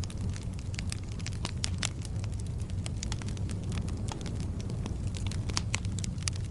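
Burning firewood crackling and popping, many sharp irregular snaps over a steady low rumble of the fire.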